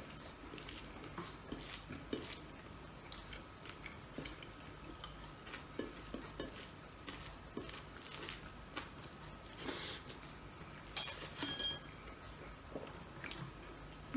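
Quiet eating sounds at a table: chewing and small clicks of fingers and food against a plate. Near the end comes a short cluster of sharp, ringing clinks, like metal cutlery on a dish.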